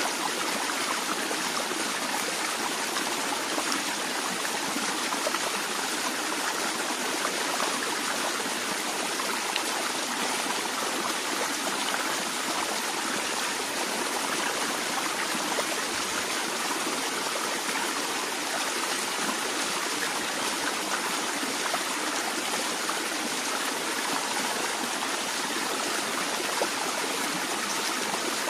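A stream of flowing water, splashing and trickling in a steady, unbroken rush.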